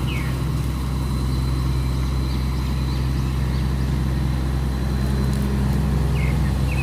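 Tugboat's diesel engine running with a steady low drone as it works upstream against a strong current.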